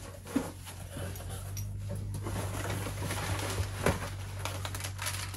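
Rustling and crinkling of plastic packing cushions being pulled out of a cardboard box, with a couple of sharp knocks against the box.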